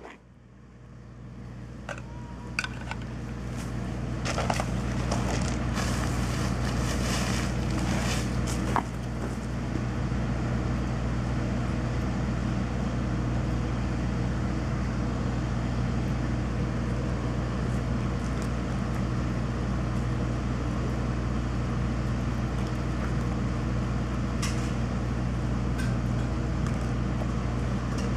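Electrical transformer humming loudly and steadily, a low buzz of several evenly spaced tones, building up over the first few seconds. A few short clicks and rustles in the first nine seconds or so.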